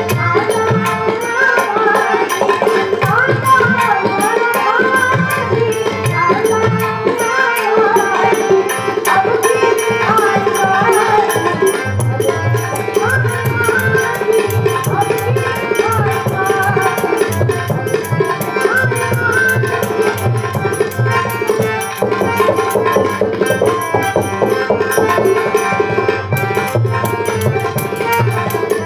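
Varkari bhajan music: an Indian hand drum played in a fast, dense rhythm, with a melody gliding up and down over a steady drone and a fine, regular clicking high above.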